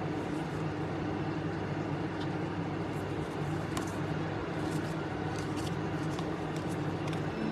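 A steady low mechanical hum, even throughout, with a few faint light clicks over it.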